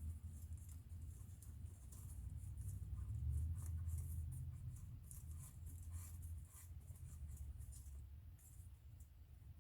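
Faint, irregular light clicks and scrapes of hand work with tools and parts, over a low steady hum.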